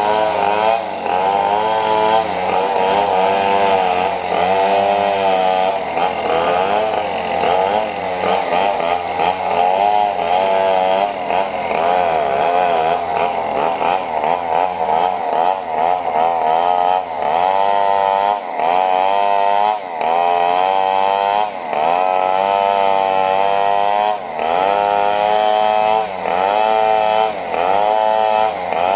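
Small petrol engine revved up and down over and over, its buzzing note rising and falling about once a second.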